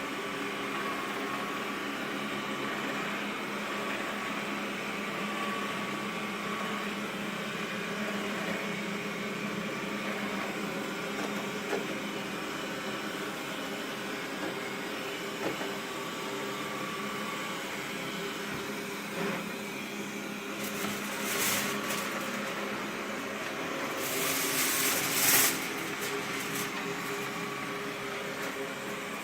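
Xiaomi Mi robot vacuum cleaner running with a steady motor and fan whir. Near the end come a couple of louder, bright noisy bursts.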